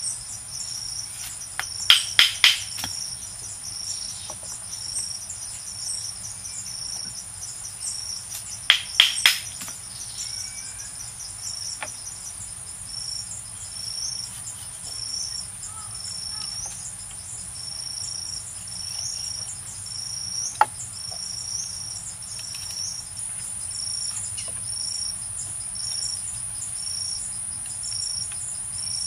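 A cricket-like insect chorus: a continuous high buzz with a short chirp repeating about once a second. Over it come two quick groups of three sharp knocks, about two seconds in and again near nine seconds, and a single knock near twenty seconds, from wood being worked by hand.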